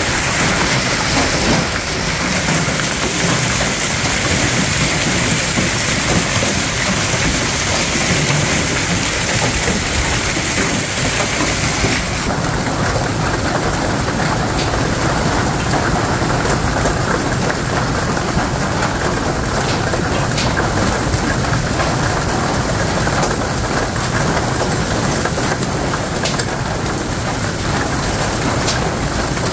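Hailstorm: hail and heavy rain pelting down in a steady, loud rush. About twelve seconds in the sound shifts, with scattered sharp clicks of hailstones striking hard surfaces.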